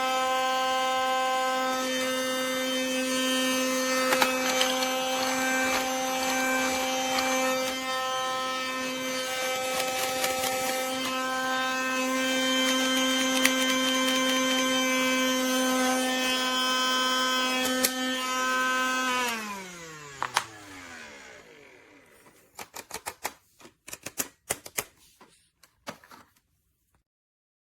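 Small battery motor of a Casdon Dyson toy cordless vacuum running with a steady whine, then switched off about two-thirds of the way in, its pitch falling as it spins down. A few light clicks and rattles follow near the end.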